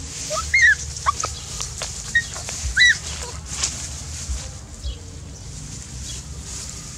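Several short, high-pitched animal calls in the first three seconds, some rising and some arched, over rustling in dry straw.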